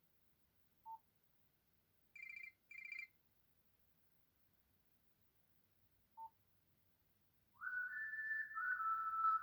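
Nokia C2-05 ringtones played one after another. A short beep comes about a second in, then two short buzzy rings between two and three seconds, and another short beep near six seconds. Near the end a new electronic melody starts with a rising glide.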